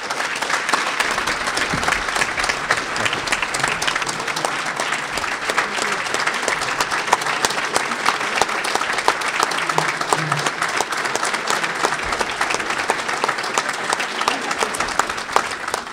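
A large audience applauding steadily in a standing ovation, many hands clapping at once throughout.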